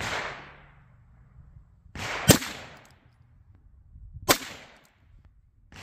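Two .22LR rifle shots, about two seconds apart, fired into a bare ballistic gel block; the first is the louder.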